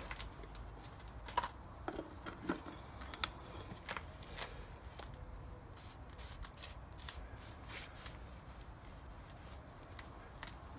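Microfibre cloth rubbing and wiping on a car's painted bumper, with a few sharp squirts from a spray bottle of detailing product a little past halfway. A low wind rumble lies on the microphone underneath.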